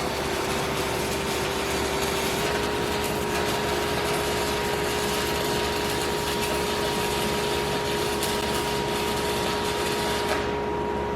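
Welding arc hissing and crackling steadily over a steady mechanical hum, the arc stopping about ten seconds in.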